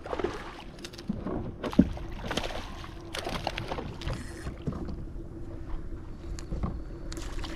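Scattered knocks, clicks and rustling of handling on a Hobie Outback kayak while a speckled trout is brought in and landed, with one sharper knock about two seconds in.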